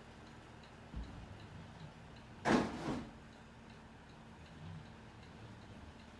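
Mantel clock ticking quietly and evenly, about two and a half ticks a second. A dull thump comes about a second in, and a loud brief scuffing noise, the loudest sound, about two and a half seconds in.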